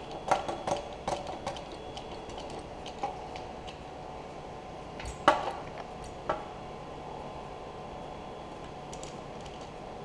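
Hydraulic hand crimper being pumped to crimp a lug onto 2/0 battery cable: a quick run of light metallic clicks and clacks in the first second and a half, then a few single sharp clicks, the loudest about five seconds in.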